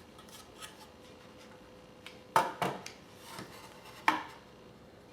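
A quartz clock movement being fitted onto the back of a clock: a few sharp clicks and knocks, two close together about two and a half seconds in and another near four seconds, with lighter tapping between.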